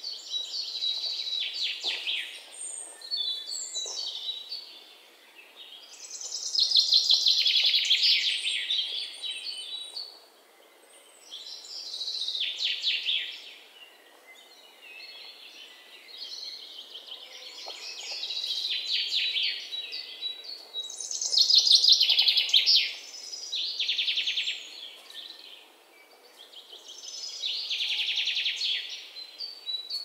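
Baby birds chirping in bouts of rapid, high-pitched cheeps, each bout a second or two long, coming every few seconds.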